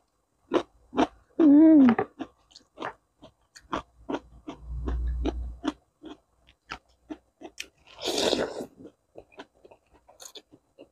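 Close-miked chewing of crisp raw cucumber: a run of sharp wet crunches and mouth clicks. A short hummed "mm" comes about a second and a half in and is the loudest sound. A low rumble follows a few seconds later, and a noodle slurp comes about eight seconds in.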